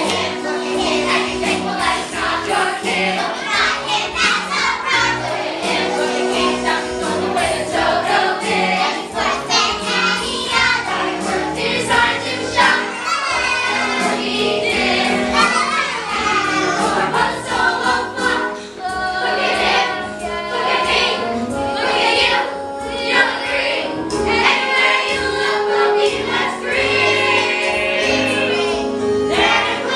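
A stage cast singing a show tune together in chorus, over instrumental accompaniment.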